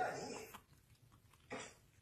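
A person's voice trailing off about half a second in, then one short sound about a second and a half in.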